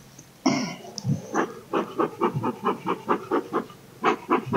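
Rapid rhythmic panting, about six breaths a second, after a brief sharp sound about half a second in.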